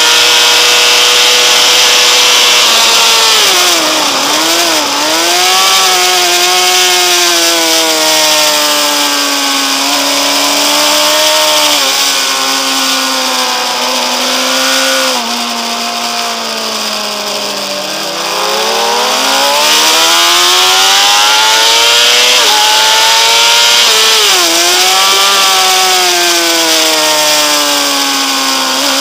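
Honda CBR600RR inline-four sport bike engine at racing revs, heard on board with a steady wind hiss. It holds high, falls under braking with throttle-blipped downshifts, then climbs again through stepped upshifts, three times over.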